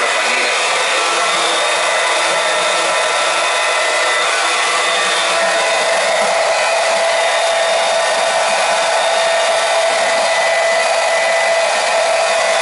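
Small electric pump running steadily, circulating glycol antifreeze through a hydronic boiler system, with fluid rushing back out of the return hoses into the feed bucket as the system is filled and purged of air.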